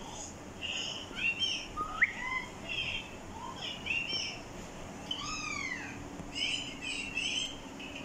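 Pet Alexandrine parakeets giving a run of short chirps and whistles, with a sharp rising whistle about two seconds in and a falling, curving whistle just past the middle.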